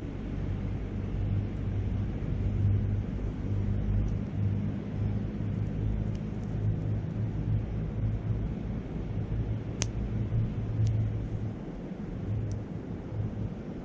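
Wind noise on the microphone over a wood campfire, with a few sharp crackling pops from the fire in the second half.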